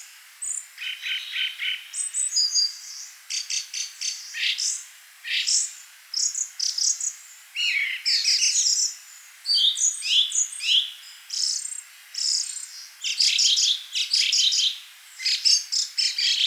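Songbirds singing: a string of short, high phrases and quick trills, one after another with brief pauses between them.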